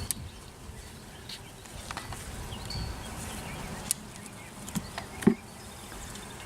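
Honey bees buzzing around an opened hive, stirred up by the inspection. A few sharp clicks and one louder knock, about five seconds in, come from the hive parts being handled.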